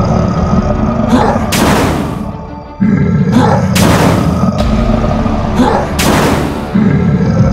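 Cartoon impact sound effects: three loud booming crashes about two seconds apart, over background music with a steady beat.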